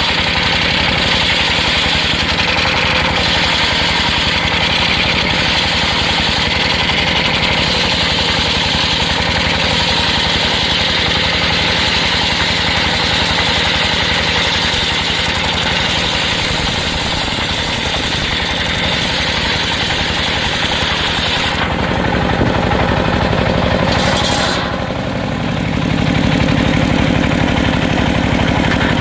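Engine-driven circular sawmill running with a steady, loud mechanical din and a rapid pulsing. About three-quarters of the way through, the high part of the sound drops away, and after a brief dip a lower, steadier hum takes over.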